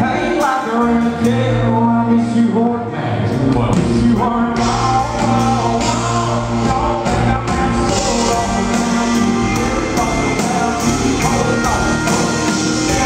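A male country singer singing live with his band: a full band with drums and bass under the lead vocal, getting fuller and brighter about four and a half seconds in.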